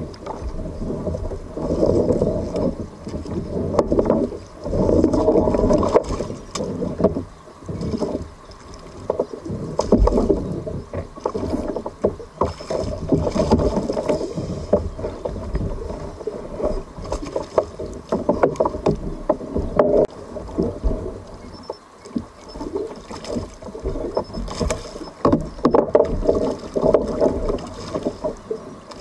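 Water sloshing and slapping against a fishing kayak's hull in irregular surges, with scattered knocks.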